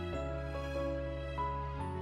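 Slow, soft background music: a held bass note that changes twice, under a gentle melody of single notes.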